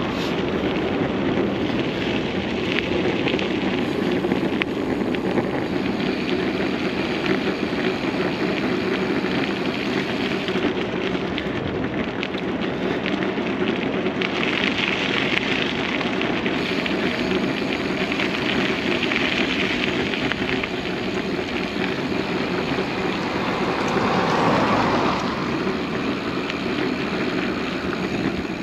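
Steady rushing, crackling wind noise on the microphone of a camera moving along a paved road, swelling briefly near the end.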